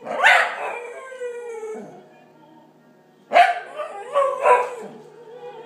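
Scottish terrier howling along with opera: a loud howl near the start that falls in pitch and fades over about a second and a half, then, after a short pause, a quick run of short barks. Opera music plays faintly underneath from a laptop speaker.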